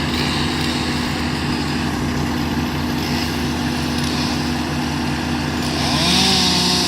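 A chainsaw engine running steadily, then revving up about six seconds in.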